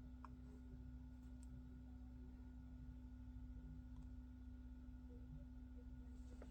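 Near silence: a faint steady low hum, with a few faint clicks.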